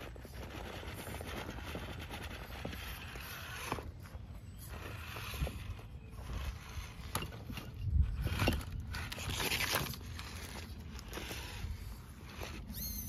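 Axial Capra RC rock crawler working over concrete blocks and rocks: its electric drivetrain whirring, and its Pitbull Rock Beast tires scraping and knocking on the stone. A louder thump comes about eight seconds in.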